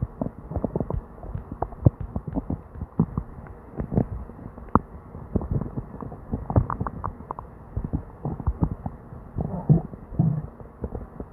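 Upset stomach gurgling: a fast, irregular run of short pops and gurgles, with a couple of longer bubbling rumbles about nine to ten seconds in. These are the bowel sounds of a bout of diarrhea.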